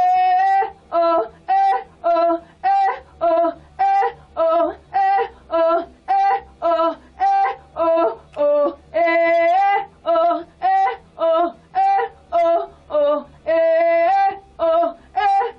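A woman singing a run of short, clipped notes, about two a second, leaping back and forth between a higher and a lower pitch, with a couple of longer held notes about nine seconds in and again near the end.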